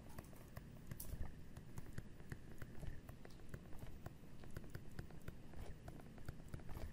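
Stylus writing on a tablet screen: light, irregular tapping and scratching as the pen tip strikes and moves across the glass, several small clicks a second.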